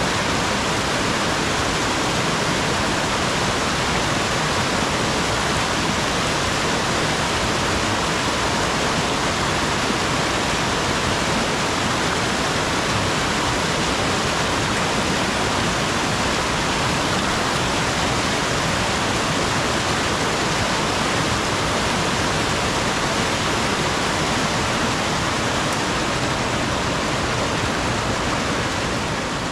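Steady rushing water with no breaks or changes, easing slightly near the end.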